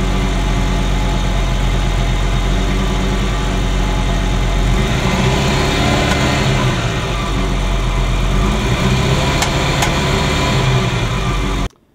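Ferrari Mondial V8 idling rough, misfiring on one bank (cylinders 5 to 8) with its ignition timing out, which the owner suspects is a faulty sensor. It runs steadily and cuts off suddenly near the end.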